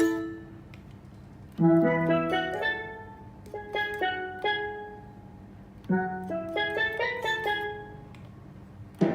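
Roland GR-20 guitar synthesizer playing a struck, quickly decaying patch in two short phrases of notes and chords, each beginning about a second and a half and six seconds in.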